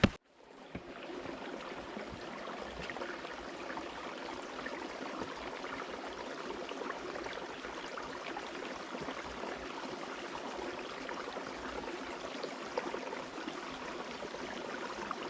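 A small stream running steadily, a thin flow of water trickling and splashing.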